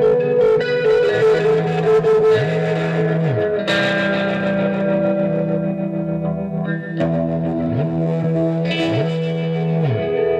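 Live instrumental music: a guitar played through effects, holding long sustained notes while low notes slide up and back down several times.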